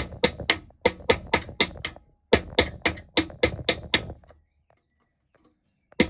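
Hammer tapping a chisel to bend back the metal lock tabs that stop the front fender's mounting nuts coming loose. Rapid sharp metal taps, about six a second, in short runs with brief pauses, stopping a little over four seconds in.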